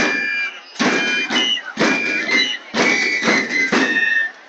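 Loud crowd, many voices shouting together in bursts about once a second.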